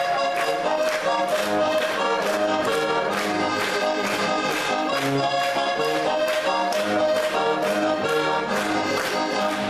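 Heligonka, a Slovak diatonic button accordion, playing a lively folk tune solo with a fast, steady beat.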